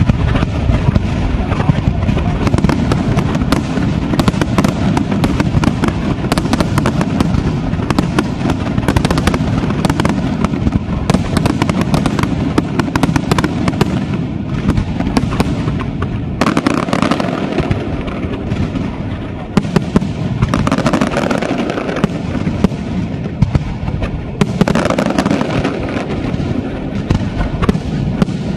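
Aerial fireworks display firing a dense, continuous barrage of shell bursts and crackling stars, the bangs following one another too fast to count.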